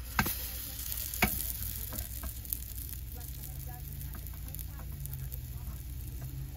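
Pancake sizzling in a small frying pan on a portable gas stove, with two sharp knocks of the pan and spatula in the first second and a half as it is flipped, then a few lighter spatula ticks.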